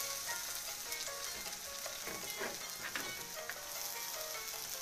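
Chopped onion, garlic and ginger sizzling steadily in hot cooking oil in a wok, stirred with a ladle that scrapes the pan a few times in the middle. The heat has been turned down to keep the oil from spattering.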